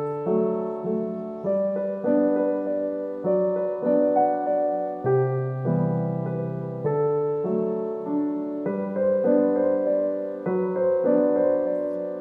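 Slow background piano music, notes struck and fading, with the chord changing every second or two.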